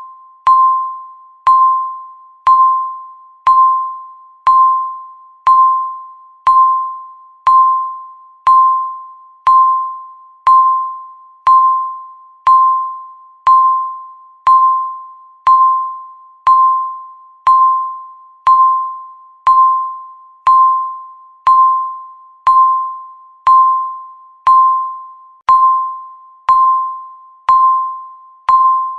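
Electronic countdown-timer beep ticking off the seconds: one short tone of the same pitch every second. Each beep starts sharply and fades away before the next.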